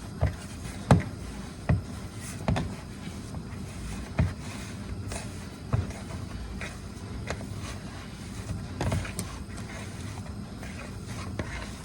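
Raw seasoned meat being mixed by hand in a bowl: irregular soft squelches and knocks, most of them in the first six seconds, over a steady low background noise.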